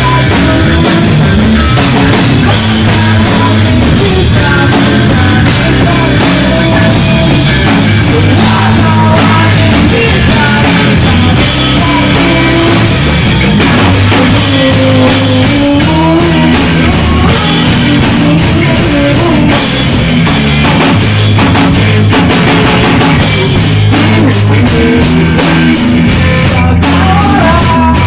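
Rock band playing a song loudly at rehearsal, with drum kit driving it.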